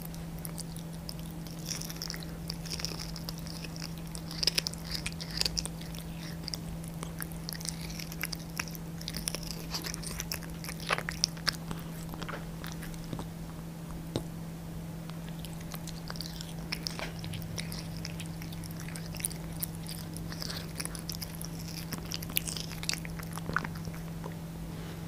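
A Devon Rex cat chewing raw meat, with rapid wet smacking and crunching clicks and lip-licking. The clicks come in two busy stretches with a short lull in the middle, over a steady low hum.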